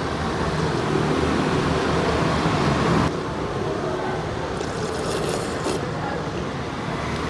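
Steady street traffic noise coming in through an open shopfront, easing off about three seconds in, with soup slurped from a spoon around five seconds in.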